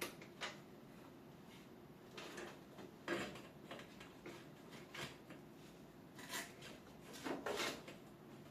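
Several light knocks and short scrapes from objects being handled, over a faint steady hum.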